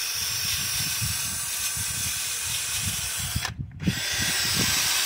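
Electric drill spinning a wire wheel against the rusty steel of old pliers, a steady rough scrubbing hiss as the wire bristles strip rust, with a short break about three and a half seconds in before it resumes.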